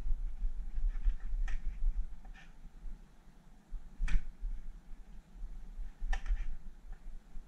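A few separate sharp taps and clicks, about four of them, the loudest about halfway through, over a low rumble: the sound of knife and fish strips being handled on a cutting board.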